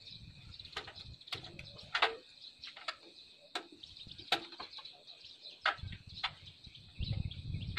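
Scattered sharp clicks and knocks of tools and parts being handled on a small walking tractor's engine as it is put back together, the engine not running, over a steady high-pitched hum.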